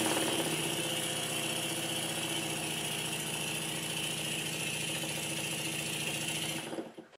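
Stuart 10V model steam engine running steadily on compressed air, with a hiss of air blowing past the piston and the slide valve at each end of the stroke and a slight knock: a sign of a worn or poorly sealing piston and valve. It fades out near the end.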